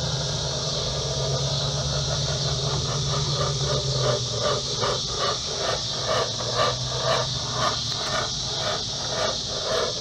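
Homemade smoke machine, converted from a fog machine, buzzing steadily as it pushes smoke into the intake, under a constant high chorus of insects. From a few seconds in, a soft sound repeats about twice a second.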